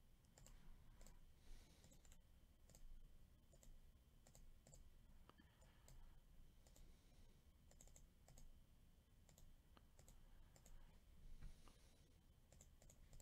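Faint, scattered clicks of a computer mouse and keyboard, some in quick pairs, over a low hum.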